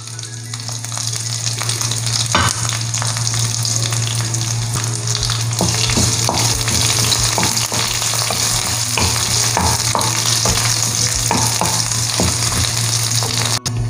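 Shallots and curry leaves sizzling in hot oil in a kadai with mustard seeds and dried red chillies, stirred with a spatula: a steady hiss broken by frequent scrapes and small pops. This is the tempering (thalippu) being fried until the shallots turn light brown.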